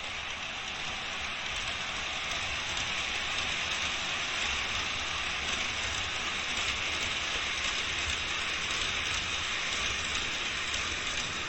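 N-gauge model train running along the track: a steady hissing rattle of wheels and motor that grows a little louder as it goes.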